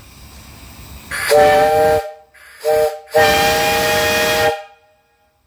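Three-chime brass steam whistle on a fire-tube boiler, blown three times: a blast of about a second, a short toot, then a longer blast. Each sounds as a steady three-note chord over the rush of escaping steam, and the last cuts off sharply.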